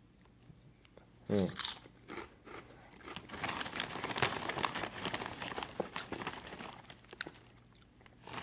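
Crunchy potato chips being bitten and chewed close to the mouth, a dense crackly crunching that starts about three seconds in and lasts about four seconds.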